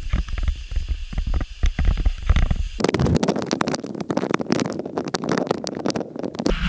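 Snowboard sliding over snow while towed on a poma drag lift, heard through low wind rumble and knocks on an action camera's microphone. About three seconds in, a louder, fuller scraping hiss sets in.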